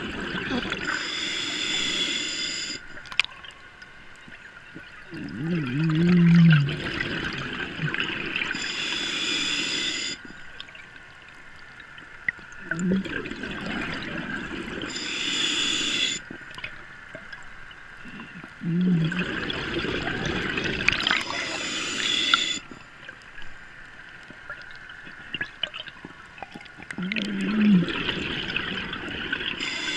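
Scuba diver breathing through a regulator underwater: about every six to seven seconds a rumble of exhaled bubbles, followed by a short whistling hiss of the inhale, with quieter gaps between breaths.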